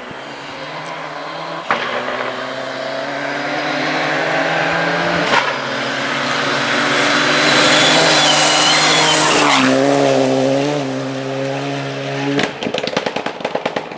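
Mitsubishi Lancer Evo rally car's turbocharged four-cylinder engine driven hard, with a sharp crack twice and a swelling rush of noise from the tyres and road. Near the end it breaks into a rapid string of pops and bangs from the anti-lag system.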